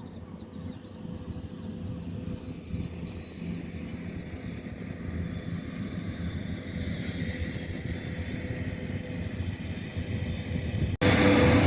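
Street-cleaning truck running with a steady mechanical hum, slowly growing louder, with a few faint bird chirps early on. Near the end it suddenly becomes much louder and closer.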